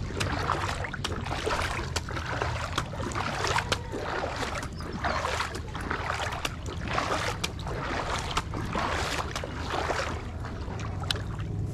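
Water splashing and sloshing as a topwater frog lure is worked across the surface of flood water, with many short sharp clicks and a steady low rumble underneath.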